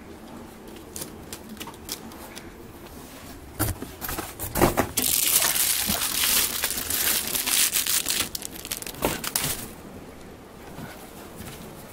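Plastic cereal bag crinkling and rustling loudly for about five seconds, starting about five seconds in, after a few scattered light knocks and rustles.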